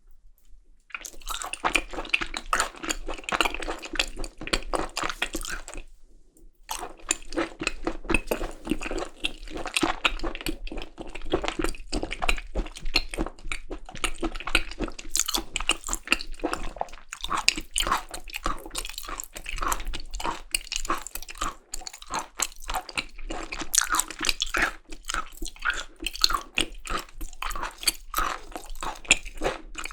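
Close-miked mouth sounds of someone chewing seasoned raw beef tartare (yukhoe): dense, fast, wet clicks. They start about a second in and break off briefly around six seconds.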